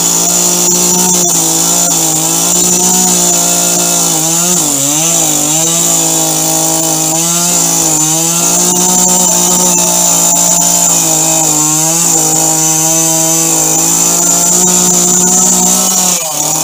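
Two-stroke petrol chainsaw held at high revs, cutting through the trunk of a fallen conifer, with a steady high engine whine over the hiss of the chain in the wood. The engine note dips briefly under load a couple of times, and near the end the throttle is released and the revs fall away.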